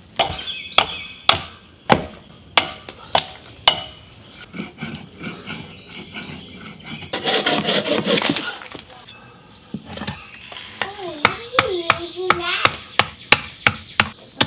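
Hatchet chopping into a pine log on a wooden chopping stump, sharp blows about two a second. In the middle a bow saw rasps through the log. Near the end come quicker, lighter hatchet blows.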